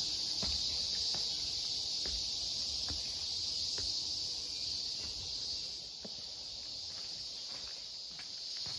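Steady high-pitched chorus of insects, with soft footsteps about once a second underneath.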